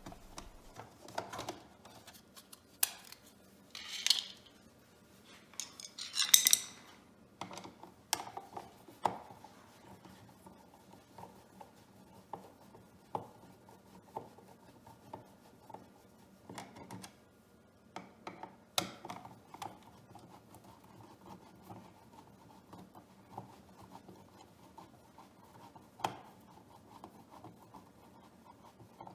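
Screwdriver and hardware handling sounds as an electrical outlet's wall plate and duplex receptacle are unscrewed and pulled from the box: scattered small metallic clicks and taps, with two louder scraping rubs about four and six seconds in.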